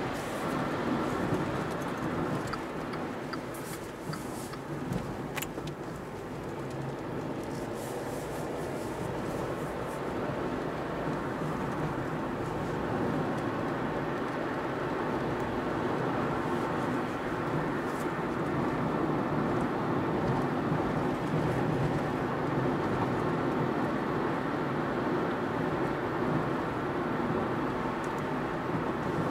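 Inside the cabin of a Volkswagen Up 1.0 with a three-cylinder petrol engine, driving: a steady engine hum blended with tyre and road noise, growing slightly louder after about ten seconds. A few light clicks sound in the first half.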